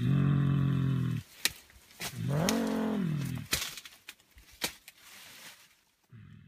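Low, deep hummed grunts of a mountain gorilla: one steady call about a second long at the start, then a second call that rises and falls in pitch around two to three seconds in. A few sharp clicks fall between the calls.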